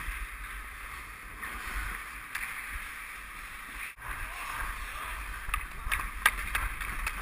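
Ice skate blades scraping and gliding across a hockey rink, a steady hiss with wind rumble on the microphone, and several sharp clacks of sticks and puck, most of them near the end. The sound drops out for a moment about four seconds in.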